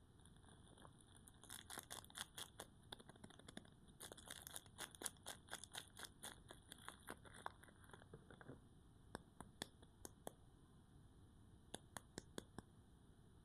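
Soap wrapping being torn open and crinkled by hand: a dense run of faint, crisp crackles through the first half, thinning to a few scattered ticks.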